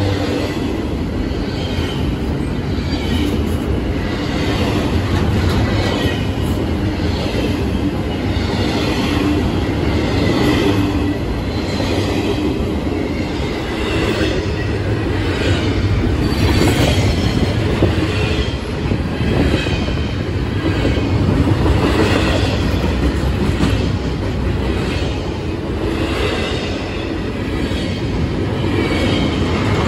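Double-stack intermodal freight train's well cars rolling past close by: a steady, loud rumble and rattle of steel wheels on rail, with regularly repeating clacks as the wheels pass over the rail joints.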